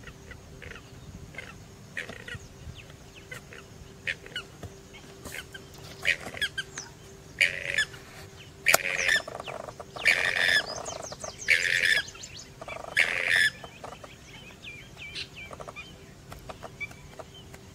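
Wetland birds calling: scattered short chirps, and in the middle a run of about five loud, harsh squawks.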